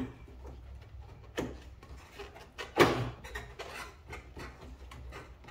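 Hand-handling knocks and clunks of plastic and metal as a stuck part at a Nissan Pathfinder's front fender and headlight corner is wiggled loose. There is a small knock about a second and a half in and a sharper, louder clunk near the middle, over a low steady hum.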